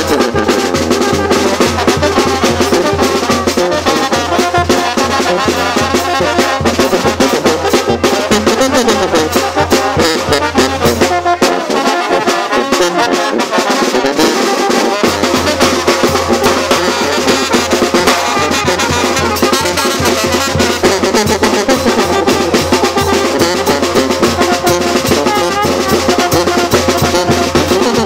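Brass band dance music, trumpets and trombones over drums, playing without a break. The deep bass drops out for about three seconds a little before the middle, then returns.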